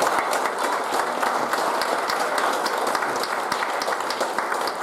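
Congregation applauding, many hands clapping at once in a steady, sustained round of applause.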